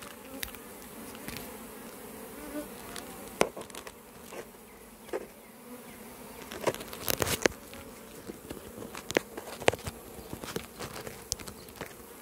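A honeybee swarm buzzing steadily in the air around the hive being removed. Several sharp knocks and clicks stand out over the buzzing, the loudest about seven seconds in.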